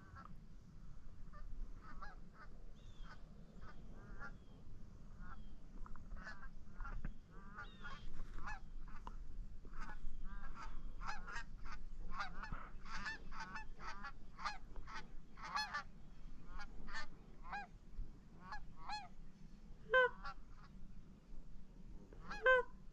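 A flock of geese honking, many short calls overlapping and growing busier through the middle, with two louder honks near the end.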